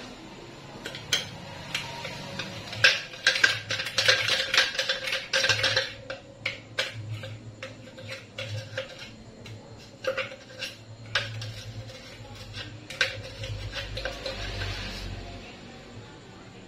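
A metal spoon scraping and tapping inside a blender jar as a sticky nut mixture is dug out, giving irregular clinks and knocks that are busiest a few seconds in and sparser after that.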